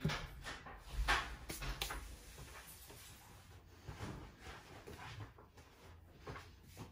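A couple of sharp knocks, followed by quieter scattered clatter and rustling handling sounds in a small room.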